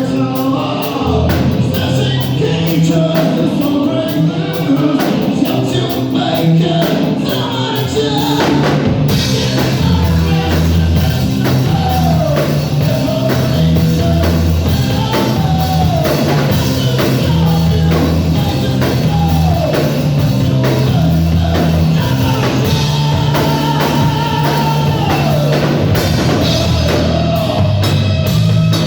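Heavy rock music with drum kit, bass and sung vocal lines; the band gets fuller in the high range about a third of the way in.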